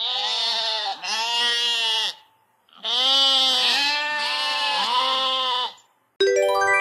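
Sheep bleating: a string of long wavering bleats, a brief pause, then another string of bleats. Near the end a short jingle of stepped chime notes starts.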